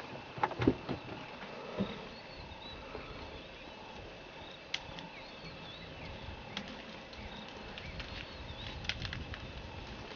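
Outdoor bush ambience: birds chirping faintly over a steady high insect drone, with a few sharp snaps and knocks in the first two seconds.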